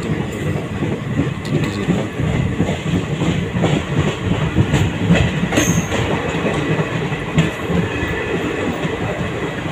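Passenger train running, heard from inside a coach at an open window: a steady rumble of wheels on rails, with a few sharp clicks as the wheels pass over rail joints.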